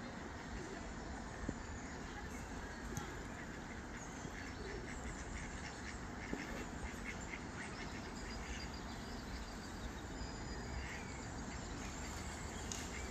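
Ducks quacking, many short calls repeated over a steady background hiss.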